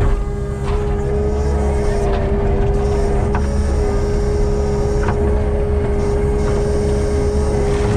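Kubota compact track loader's diesel engine running steadily, with a constant whine over it and a few faint clicks or knocks.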